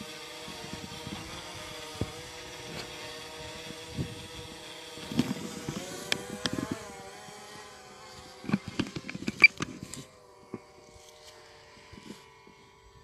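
DJI Mavic Mini drone's propellers whining as a steady multi-tone hum. Its pitch rises briefly about six seconds in as the drone climbs, and the hum turns fainter after about ten seconds. A cluster of sharp clicks and knocks between about eight and ten seconds in is the loudest sound.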